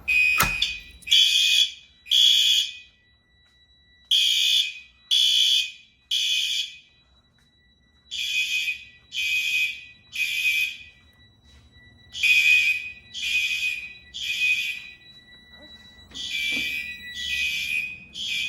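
Fire alarm sounding in the temporal-three evacuation pattern: three short buzzing blasts, a pause, then again, about every four seconds. This is the system in alarm after a device on the conventional panel was key-activated. A faint steady high tone runs underneath.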